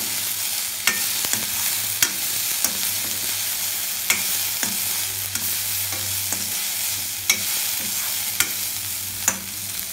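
Chopped vegetables sizzling in oil in a stainless steel pan as they are stirred. A steel spatula scrapes the pan and clinks against it at irregular moments, about once a second.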